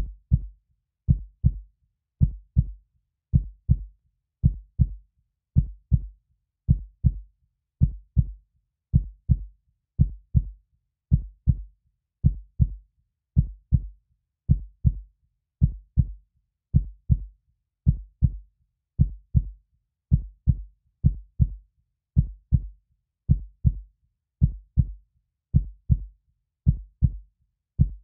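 Steady heartbeat in a slow lub-dub rhythm: a stronger deep thump followed by a softer second thump, the pair repeating a little under once a second.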